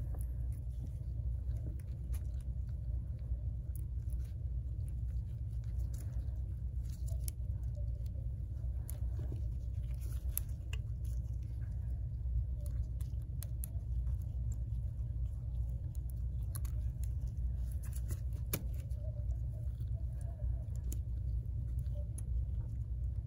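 Faint, irregular small clicks and rustles of gloved fingers handling and seating the small front camera assembly of an iPhone 8 Plus, over a steady low hum.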